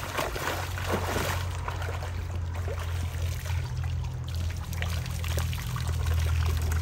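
Creek water trickling and splashing, with a steady low hum underneath.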